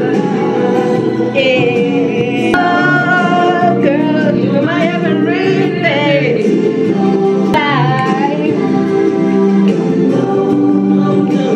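Soul song playing: a lead singer over instrumental backing, the voice wavering on held notes.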